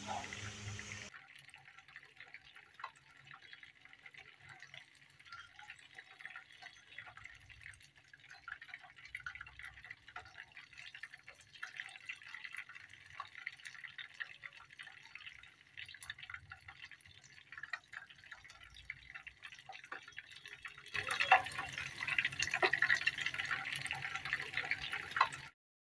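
Chicken pieces deep-frying in hot oil: a steady sizzle thick with fine crackles and pops. It is faint for most of the time and grows louder about five seconds before the end, then cuts off suddenly.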